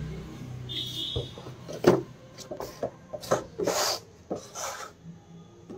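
Cardboard model box being handled and slid on a wooden tabletop: a string of short scrapes and rubs with a few clicks.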